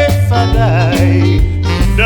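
Background music: a song with a singing voice over a bass line and a steady beat.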